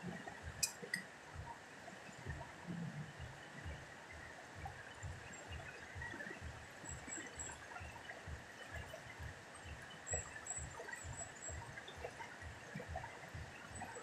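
Wide muddy river rushing steadily past the rocks, with irregular low thumps throughout and a sharp click under a second in.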